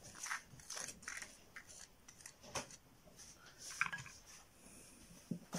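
Soft scraping and light clicking of plastic as a thin spatula scrapes cream into a small plastic roll-on bottle, with a sharper tap near the end.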